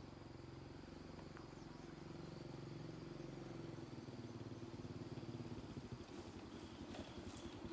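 Motorcycle engine running as the bike rides slowly along a dirt track toward the listener, growing gradually louder as it comes closer.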